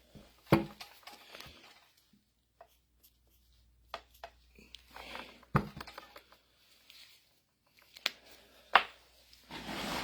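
Handling of a removed hydraulic pump on a work surface: a few sharp knocks as the part is moved and set down, with scraping and rustling between them.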